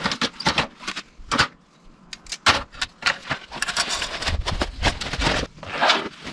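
Stainless-steel panels and grills of a folding barbecue clinking and clattering as they are folded flat and slid into a fabric carry case, a quick string of metal clicks and knocks with a denser rattle in the second half.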